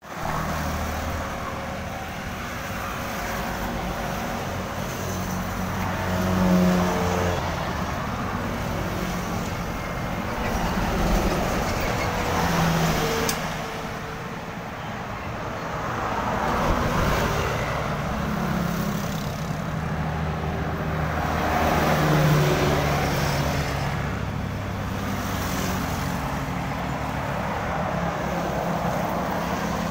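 Road traffic passing close by: motorcycles, cars and a box truck. The engine and tyre noise is steady and swells several times as individual vehicles go past.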